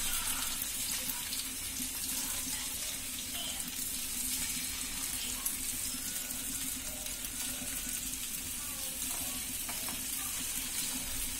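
Masala-coated Indian mackerel (ayala) pieces sizzling in shallow oil in a nonstick pan, a steady hiss with fine crackling, as more pieces are laid into the oil.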